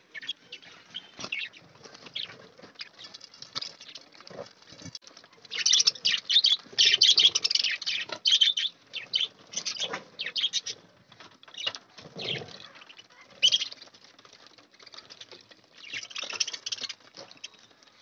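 A group of budgerigars chirping and chattering in bursts, with wings fluttering as birds land at the food bowl. The chatter swells loudest a few seconds in and again near the end.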